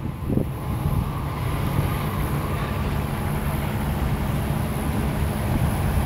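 Semi truck's diesel engine idling, a steady low hum.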